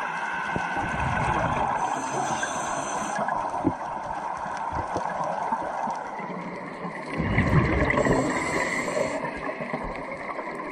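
Underwater sound of a scuba diver breathing through a regulator: a steady watery hiss, with a louder low rush of exhaled bubbles starting about seven seconds in and lasting a couple of seconds.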